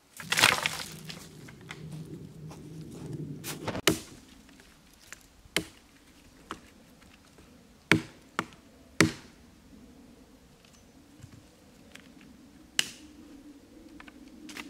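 Dry dead branches being broken up by hand for firewood: a loud splintering crackle at the start, then a string of sharp, irregular snaps and cracks of the wood, with leaf litter rustling underneath.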